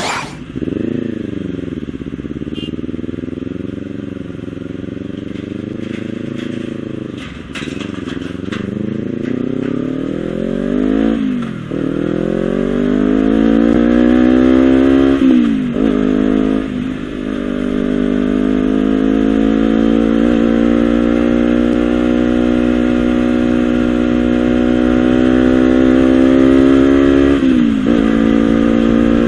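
Honda CBR250RR's parallel-twin engine running through a Villan SV1 slip-on aftermarket exhaust, revving up and down. After a few low, wavering blips the revs climb steadily with several sudden drops, then hold high for about ten seconds before falling away near the end.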